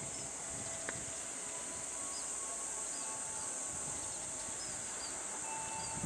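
Steady high-pitched insect drone, like crickets or cicadas, with short bird chirps repeating over it.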